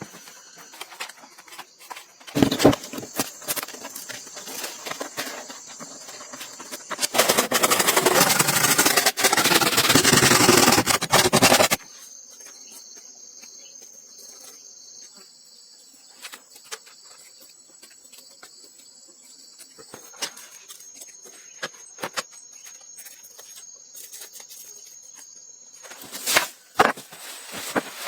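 Insects buzzing steadily in a high, even tone, with scattered knocks and clicks. A loud rushing noise starts about seven seconds in and stops suddenly about five seconds later.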